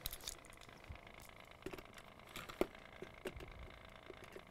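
Faint handling noise: a scattering of small clicks and taps as a die-cast Matchbox toy car is turned and set down on a foam mat, the sharpest tap about two and a half seconds in.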